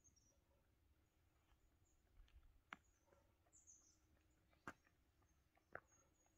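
Near silence in a forest, with a few faint, high bird chirps and three sharp clicks.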